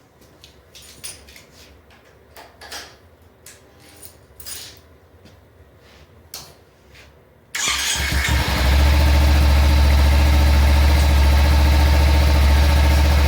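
A few light clicks and taps, then about seven and a half seconds in a Kawasaki Ninja 300's parallel-twin engine, on its stock exhaust, starts and settles into a steady idle. At idle the stock exhaust is not super loud.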